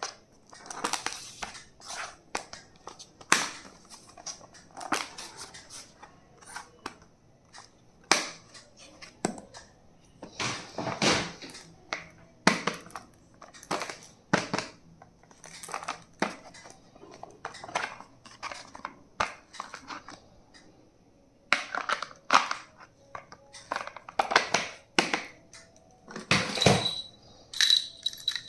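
Stationery items and their plastic packaging being handled and unwrapped: irregular clicks, taps and crinkling rustles, one or two every second or so.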